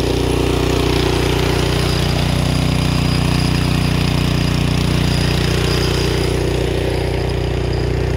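Craftsman snowblower engine running steadily at an even pitch.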